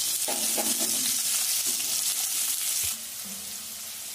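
Chopped onion sizzling in hot oil in a pan as a wooden spatula stirs it; the sizzle falls noticeably quieter about three seconds in.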